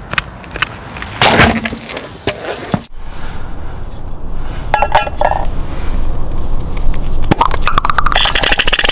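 Clicks and clinks of objects being handled and set down, then, about eight seconds in, the steady hiss of an aerosol can spraying foam into a tin can.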